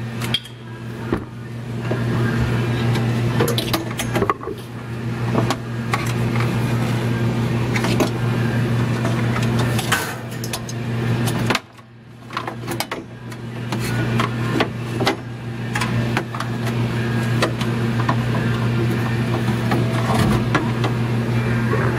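Dixie Narco 5591 vending machine refrigeration unit running: a steady electric hum over airflow noise, with scattered ticks and rattles. About halfway through the sound drops suddenly and builds back up over a couple of seconds.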